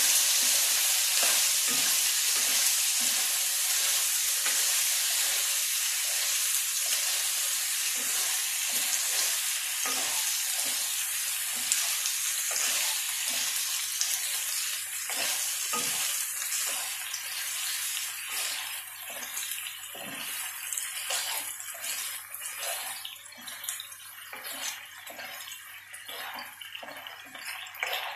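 Bow-tie pasta and shrimp sizzling in a non-stick frying pan while a spatula stirs and scrapes through them in repeated strokes; the sizzle dies down over the second half.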